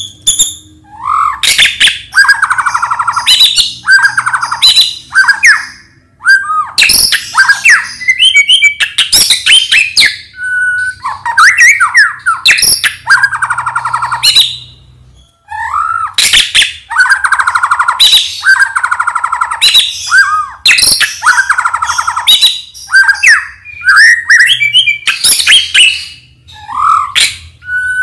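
White-rumped shama (murai batu) singing loudly and without a break, in rapid phrases of rattling, buzzy notes, swooping whistles and sharp high chips, each phrase a second or two long with short pauses between.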